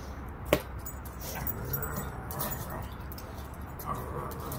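A dog whimpering and yipping in play, with one sharp, short sound about half a second in.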